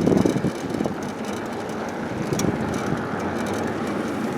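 Wind rushing over the microphone and tyre noise from a bicycle being ridden along a street, a steady noise with one sharp click a little over two seconds in.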